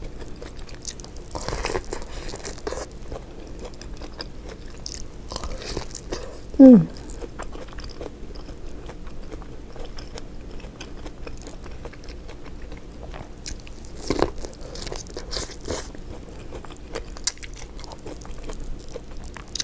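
Close-miked eating sounds from a seafood boil: biting, chewing and scattered crunches, with a short falling hum of a voice about seven seconds in.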